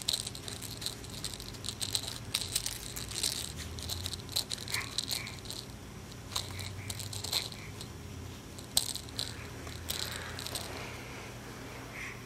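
Rattle inside a soft fabric toy cube being shaken and knocked about by a baby: irregular light rattling, busiest in the first few seconds, then sparser, with one sharper click about nine seconds in.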